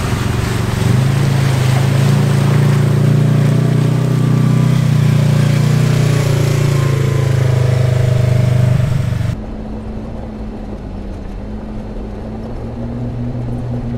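Off-road vehicle engine running steadily under way, a loud drone with a broad hiss over it. About nine seconds in it cuts abruptly to a quieter, duller engine drone.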